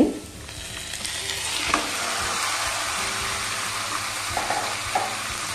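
Marinated chicken tipped into hot oil and fried onions in a non-stick pan, sizzling as it lands; the sizzle builds over the first two seconds and then holds steady, with a light knock about a second and a half in.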